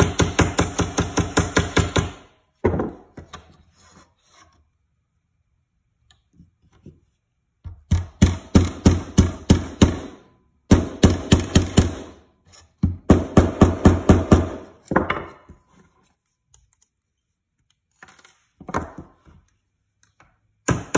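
Small fret hammer tapping frets into the slots of a ukulele fretboard, in quick runs of about six taps a second with short pauses between runs.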